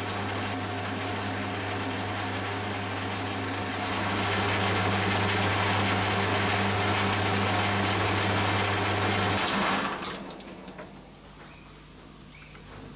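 Metal lathe running with a boring bar cutting inside a cast iron piston blank, a steady hum that gets a little louder about four seconds in. The lathe is switched off about nine and a half seconds in, with a click as it stops, leaving a quiet hum and a faint high whine.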